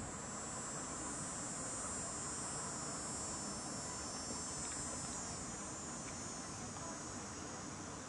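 High-pitched insect buzzing, growing in the first second or so and fading after about five seconds, over a steady outdoor hiss.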